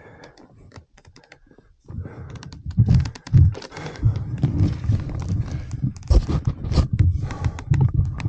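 A person breathing hard and heavily close to the microphone from exertion, starting about two seconds in, with scattered clicks and knocks.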